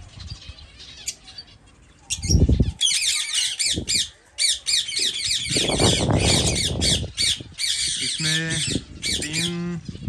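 A crowd of caged birds in an aviary, finches among them, calling all at once: a dense chatter of rapid, high-pitched calls that starts about three seconds in. Low rumbles come about two seconds in and again in the middle.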